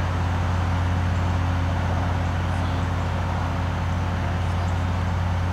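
Road roller's diesel engine running steadily, a constant low drone with no change in pitch.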